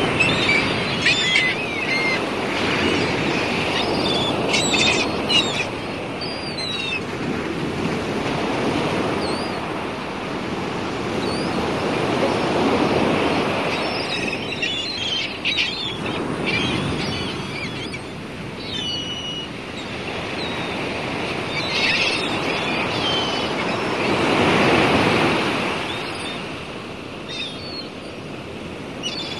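Sea water washing and surging, swelling and fading every few seconds, with scattered short, high bird cries over it.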